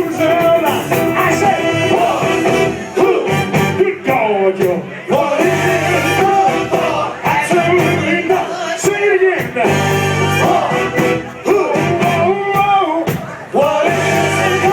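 Live soul band playing, with a singer's voice over the instruments.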